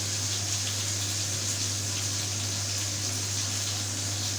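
Steady hiss of food cooking in pots on a stovetop, with a constant low hum underneath.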